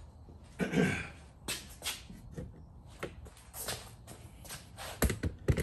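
Shuffling footsteps and scattered knocks of handling as the camera on its tripod is picked up and carried to a new spot, with a louder bump about a second in and a few sharp knocks near the end.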